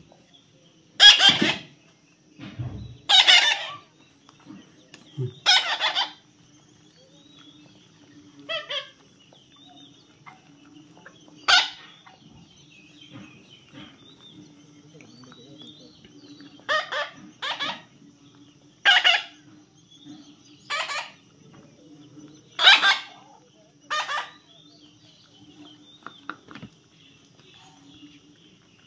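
A bird giving short, harsh squawking calls, about eleven in all, singly or in quick pairs, with a lull of a few seconds midway. A faint steady hum runs underneath.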